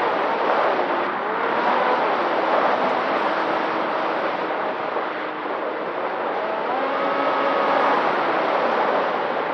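Electric motor and propeller of an RC flying wing whining, the pitch gliding up and down several times as the throttle changes, over a steady rushing noise.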